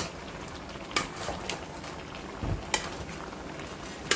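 Metal ladle clinking and scraping against a steel pot as a seafood boil with mung bean sprouts is stirred: several sharp clinks spread through, and one duller knock past the middle.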